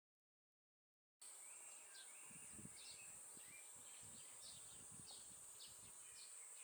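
Silent for about the first second, then a steady high-pitched cicada drone with many short bird chirps and calls over it, and a few soft low thumps.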